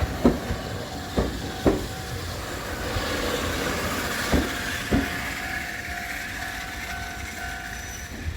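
A train passing over a level crossing, its wheels clacking over rail joints in pairs of sharp knocks three times. A steady whine runs under the rumble through the second half.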